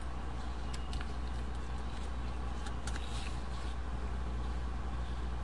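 Steady low hum of an egg incubator's fan and motor running, with a few faint clicks about a second in and again near three seconds.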